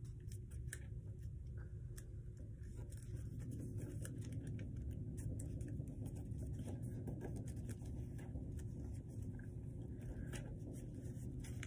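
Notebook paper being folded and creased by hand: soft rustling with many small scratchy ticks as the sheet is swivelled and pressed down. A low steady hum runs underneath.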